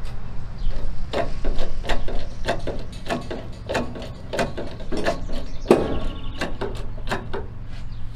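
Hydraulic bottle jack on a small trailer-mounted crane being pumped by hand to hoist a steel pipe on a chain: a run of short metallic clicks and clanks, a little under two a second.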